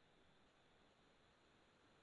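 Near silence: faint steady hiss of a screen recording.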